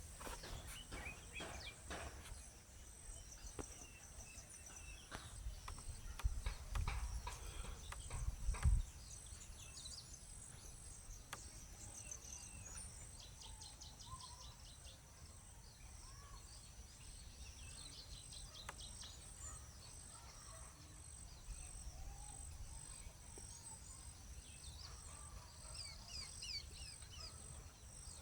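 Outdoor ambience of small birds giving short, rapid high chirps in scattered bouts, over a steady high insect tone. A few knocks and low thuds fall in the first nine seconds.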